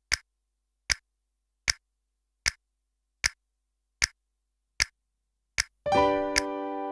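Eight sharp, clock-like ticks, evenly spaced about three-quarters of a second apart, with dead silence between them. Near the end a music track comes in, and the ticks keep time within it.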